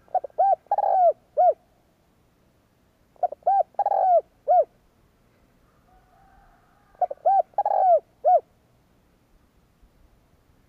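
Spotted dove cooing its territorial song, used here as a lure call for wild doves. There are three phrases, each of four or five short rising-and-falling coos with one longer coo among them, repeated about every three and a half seconds. A faint higher bird call sounds in the background.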